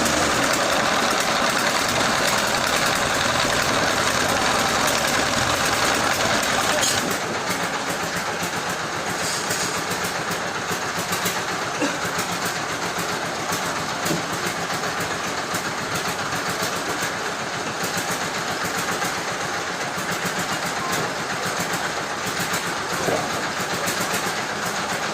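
Machinery running steadily, a dense even noise that drops somewhat in level about seven seconds in.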